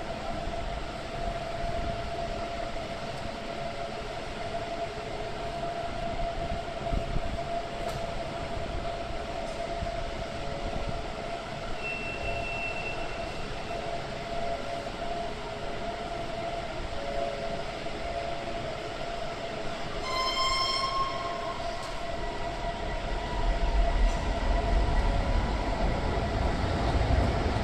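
Light-rail tram at an underground stop: a steady electrical hum from the tram, a short high beep about twelve seconds in, and a brief horn-like warning tone about twenty seconds in. Near the end a low rumble grows as the tram moves along the platform.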